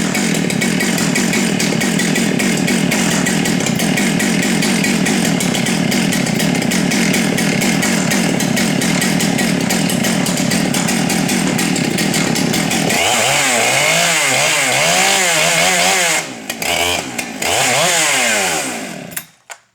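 Husqvarna 394 XP two-stroke chainsaw held at high throttle for about thirteen seconds, then revved up and down in a series of blips, and shut off just before the end.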